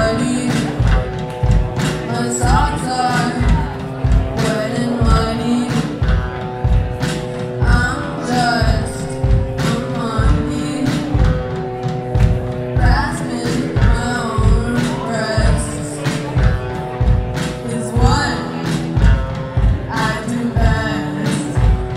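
Live rock band playing a song: a woman singing over electric guitars and drums, with a steady drum beat.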